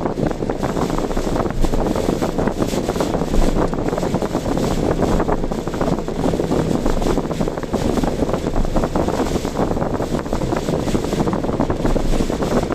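Steady wind and road noise from a car driving through typhoon weather, dense and unbroken, with a constant flickering patter.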